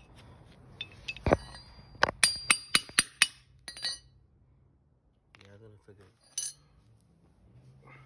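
Hammer blows on a steel socket, about ten sharp metallic clinks in quick succession over roughly three seconds, driving the worn pillow-ball bearing out of an aluminium suspension top mount. A single lighter clink follows a couple of seconds later.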